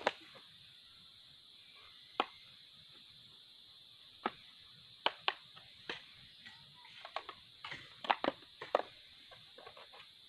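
Irregular sharp clicks and taps from hands planting a mulberry cutting in a soil-filled container, with a cluster of quick taps about eight seconds in, over a steady high-pitched hum.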